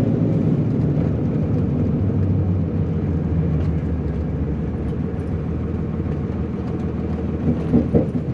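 Cummins 5.9-litre inline-six turbodiesel of a 2001 Dodge Ram 2500 running steadily as the truck drives, a continuous low engine drone.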